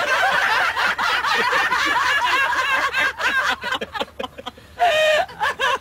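Two women and a man laughing hard together in continuous, overlapping fits of giggling, breaking into choppier bursts, with one loud drawn-out laugh about five seconds in.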